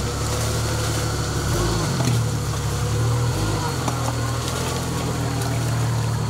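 Off-road 4x4 vehicle engine running steadily at low revs.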